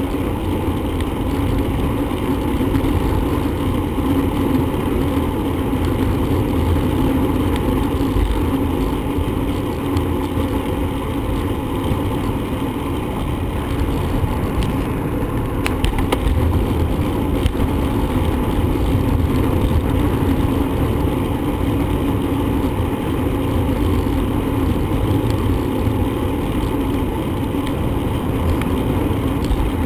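Steady wind and road noise from riding a bicycle, with a few brief clicks about halfway through.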